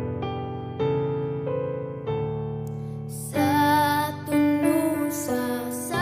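Background music: soft electric piano chords, with a high singing voice coming in about halfway through.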